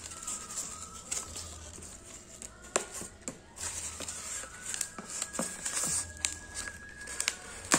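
Scissors cutting open a parcel packed in polystyrene foam sheets: scattered sharp snips and clicks, with crackling and rustling of the packing.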